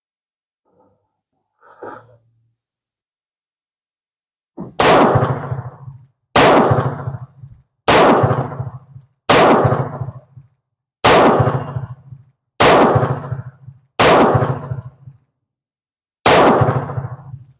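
Eight pistol shots fired one at a time, about one and a half to two seconds apart, starting about five seconds in. Each is a loud crack that dies away over about a second.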